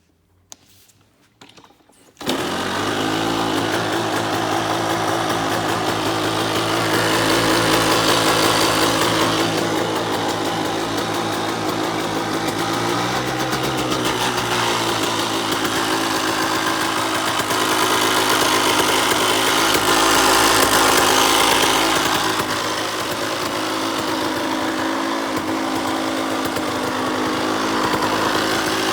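2003 KTM SX85's 85 cc two-stroke single-cylinder engine starting suddenly about two seconds in, after a few clicks, then running steadily with a few slight rises in revs. The noise comes from the gearbox area, and the owner wonders whether it means gearbox damage or a clutch fault.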